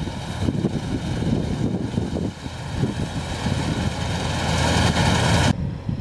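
New Holland combine harvester running as it cuts wheat, a steady mechanical drone with rumble and a high whine that grows louder as the machine comes closer. About five and a half seconds in it cuts off suddenly, leaving a thinner wind-like noise.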